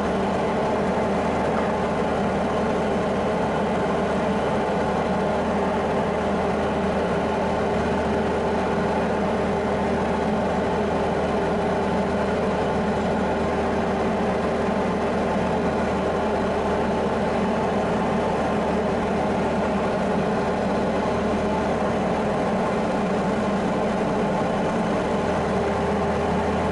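Diamond DA40's single piston engine and propeller droning steadily in flight, heard inside the cockpit.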